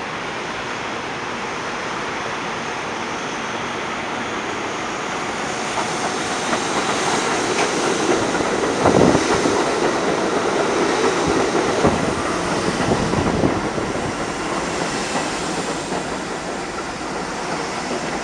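Subway train running past, its rumble building about six seconds in, with a few sharp wheel clacks over the track near the middle, then easing off toward the end.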